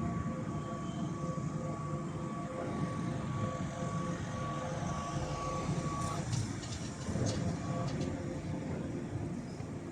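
Piling rig's diesel engine running steadily, with a steady high tone that stops about six seconds in. A few sharp clicks follow between about six and eight seconds.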